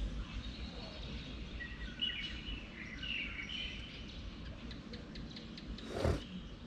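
Birds chirping over a steady low rumble, with one sharp thump about six seconds in.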